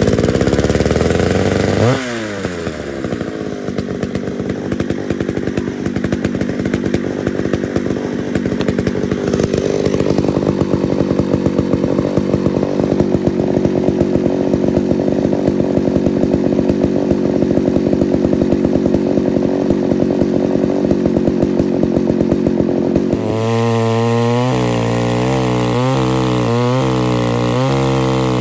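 Homelite Super XL 925 82cc two-stroke chainsaw, just started: it revs high, drops to a steady idle about two seconds in, and idles for some twenty seconds. Near the end it goes to full throttle and cuts into the log, running rich.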